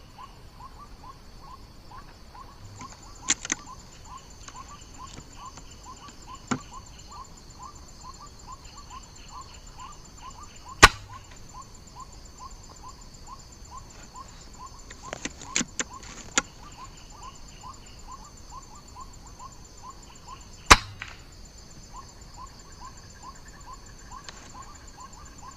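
Two air-rifle shots about ten seconds apart, each a single sharp crack, with a few fainter clicks and knocks between them. Under them run high insect buzzing and a call repeated about twice a second.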